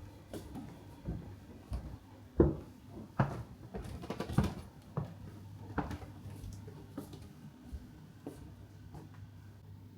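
A series of light knocks, clicks and rustles of objects being handled, the loudest knock about two and a half seconds in, over a faint steady low hum.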